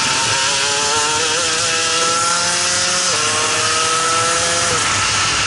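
Shifter kart's two-stroke engine at full throttle, its pitch climbing as it revs. The revs drop sharply about three seconds in at an upshift, then climb again before the engine note falls away near the end, over steady wind and engine noise.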